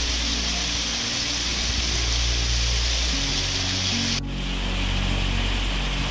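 Heavy rain pouring down as a dense, steady hiss, with background music of low held notes underneath. The rain sound changes abruptly a little after four seconds in.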